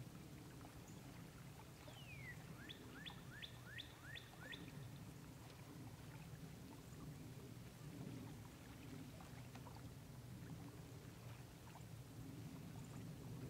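Quiet outdoor ambience with a steady low rumble. About two seconds in, a songbird sings one short phrase: a falling whistle, then a quick run of about six downslurred notes.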